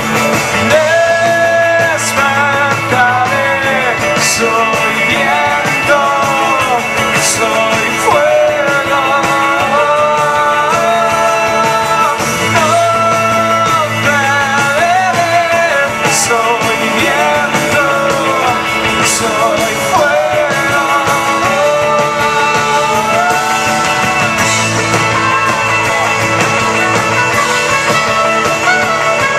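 A rock band playing live, with electric guitars, acoustic guitar, keyboards and drums behind a lead singer's long, drawn-out vocal melody. Cymbal crashes come every few seconds.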